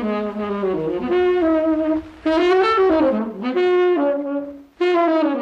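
Saxophone playing a melody of held and sliding notes from an old analog tape recording, with two short breaks between phrases, about two seconds in and near the end.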